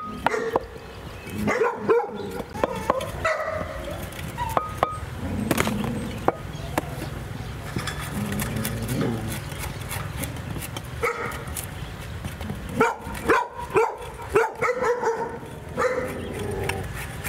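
A dog barking and yipping in two spells, one about two seconds in and another from about eleven seconds in.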